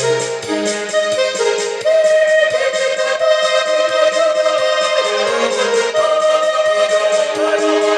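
Electronic keyboard playing sustained chords over a steady rhythm-track beat, accompanying a choir practice.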